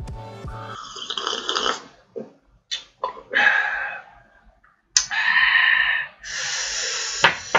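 A man sipping hot coffee from a cup: a run of about five noisy slurps and breathy sounds, each up to about a second long, with short gaps between them.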